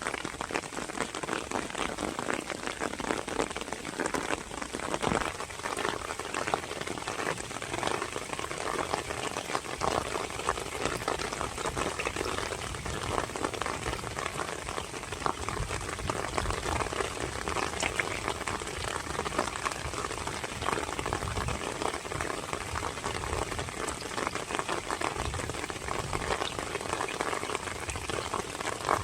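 Steady rainfall, a dense patter of drops striking a hard surface.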